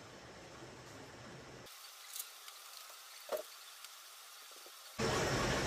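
Faint background hiss that drops away abruptly about two seconds in and comes back louder near the end, with a couple of faint clicks in between.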